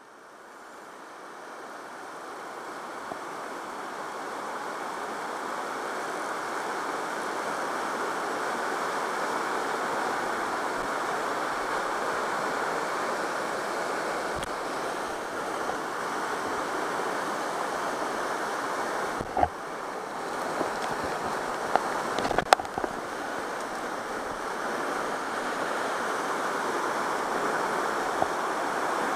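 River rapids rushing steadily, fading in over the first few seconds, with a few sharp knocks about two-thirds of the way through.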